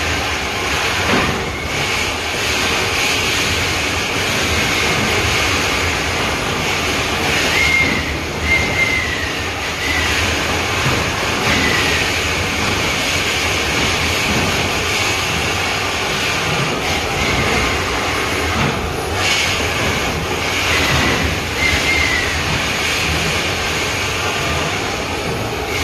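Shaft-mucking machinery running steadily and loudly, with a few short high squeals scattered through.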